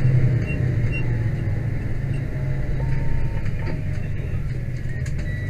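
Fire truck's engine and road noise heard from inside the cab: a steady low rumble as the truck rolls up, easing slightly after the first second or so.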